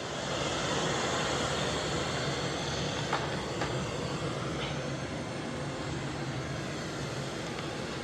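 Robot vacuum-mop running, a steady whir of its suction fan and brushes, rising a little in the first second, with a few light clicks midway.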